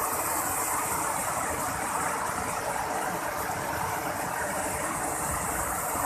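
Waterfall cascading over mossy rock steps: a steady, even rushing of water close by.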